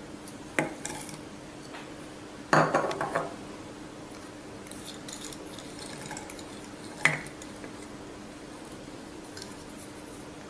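Spoon knocking against a glass jar as ingredients are tipped in: a single clink a little after the start, a louder clatter of several knocks around three seconds in, and another clink about seven seconds in. A faint steady hum runs underneath.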